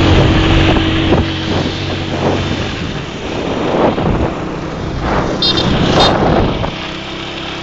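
Motor tricycle engine running steadily as it rides along, with heavy wind buffeting the microphone.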